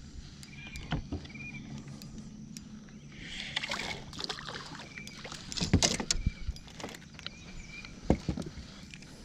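Knocks and rustling from handling in a small jon boat, with a few sharp knocks and a stretch of rustling midway, over a faint steady low hum.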